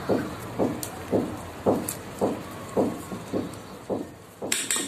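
A metal spoon spreading strawberry jam over whipped cream inside a stainless-steel cake ring, in short strokes about twice a second. Near the end the spoon clinks several times against the metal.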